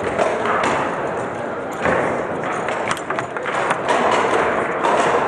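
Table football in play on a Lehmacher table: the ball and rods give sharp knocks and thuds as the ball is struck and hits the table, several of them, clustered around 2 to 3 seconds in, over the murmur of a crowd.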